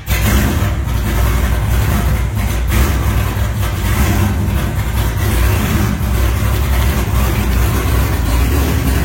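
Corvette V8 on freshly fitted headers, running steadily and loud, not yet tuned.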